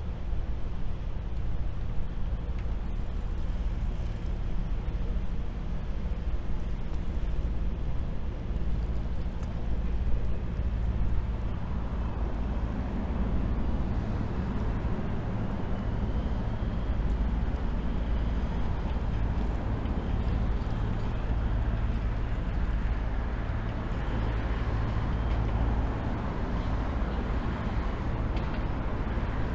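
Steady outdoor city ambience: a continuous low engine rumble with a haze of traffic and river noise above it, no single event standing out.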